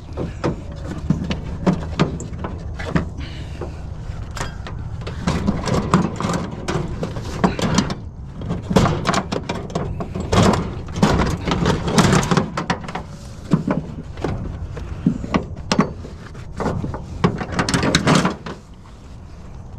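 Irregular knocks, clunks and rattles of scrap items being handled and shifted in a vehicle's cargo area, over a steady low hum.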